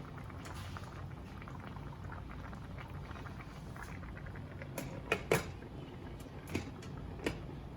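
Pot of fish simmering in buttery water on high heat: a steady low bubbling, with a few sharp clicks about five to seven seconds in.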